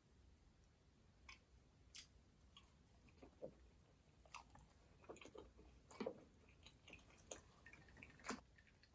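Faint close-up sounds of a person chewing food, with scattered soft mouth clicks and smacks at irregular intervals.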